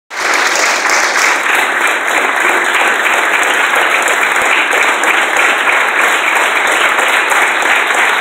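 Audience applauding steadily, welcoming a string ensemble as it walks on to play.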